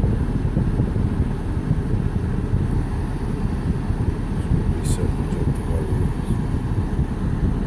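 BMW M57 straight-six diesel engine of an E46 330d running with a dense, uneven low rumble; the owner finds cylinder 6's injector failing and causing a rough, lumpy idle. A brief click about five seconds in.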